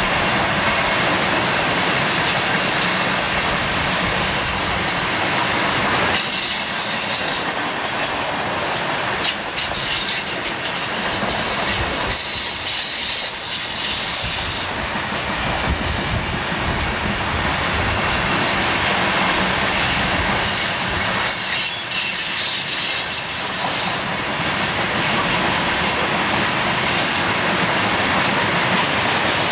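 Freight train of CSX hopper cars rolling past close by: steady rumble and clatter of wheels on the rails, with high-pitched wheel squeal coming and going several times.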